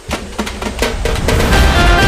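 Background music with drum hits, rising in level as steady instrumental notes and a strong bass come in about halfway through.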